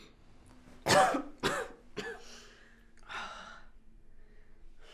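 A sick woman coughing hard: two loud coughs about a second in and a weaker third just after, then two breathy, ragged breaths.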